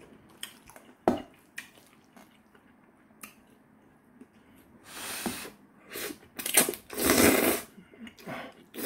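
A man slurping thick kalguksu noodles, with a series of noisy slurps over the last four seconds. Before them come a few light clicks of metal chopsticks against a stainless-steel bowl.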